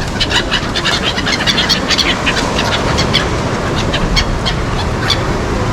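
A flock of pigeons and gulls feeding on thrown food: a dense run of short, sharp bird sounds, several a second, over a steady background rush.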